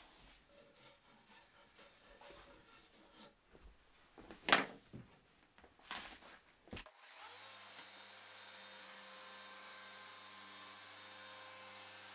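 A few knocks and rattles from handling timber and tools, with one sharp knock about halfway through. About seven seconds in, a Festool Rotex 125 sander and its dust extractor switch on together, spin up briefly and then run steadily.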